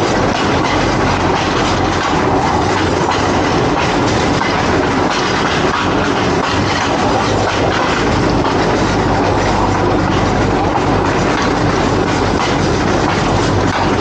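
A train rolling along the track: a steady, loud running noise with frequent small knocks from the wheels on the rails.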